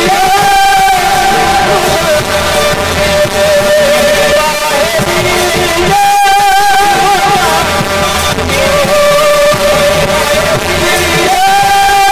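Devotional kirtan singing: a voice holds long, wavering notes over steady instrumental accompaniment. A phrase that opens on a higher note and steps down repeats about every six seconds.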